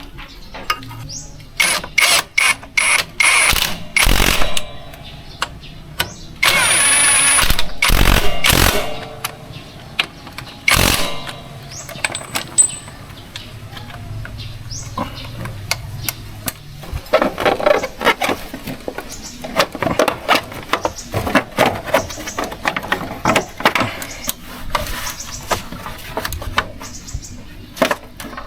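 Hand tools and metal parts knocking and clinking during work on a scooter's rear end, with a loud two-second machine-like burst about six and a half seconds in and runs of rapid clicking later on.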